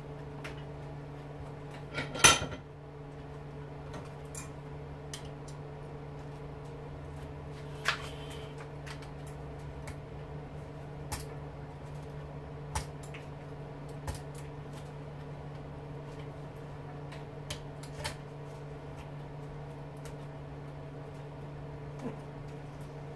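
Scattered metallic clicks and clinks of hand tools and small motor parts being worked loose, with a sharp clatter about two seconds in. A steady low hum sounds underneath.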